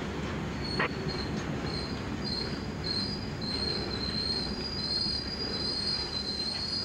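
Freight train's hopper cars rolling past with a low rumble of wheels on rail and a clank a little under a second in. A high, wavering wheel squeal sets in and holds.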